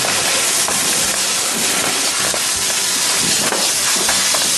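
Sound effect of a fire hose's water jet spraying: a loud, steady hissing rush.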